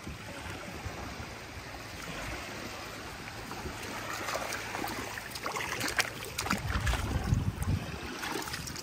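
Shallow sea water washing and lapping at the shoreline, with scattered sharp clicks and low gusts of wind on the microphone in the second half.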